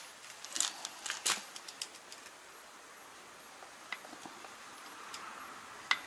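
A few sharp clicks and knocks in the first second and a half as the plastic guard of a tractor PTO driveshaft is handled, then a low steady background with a couple of faint ticks.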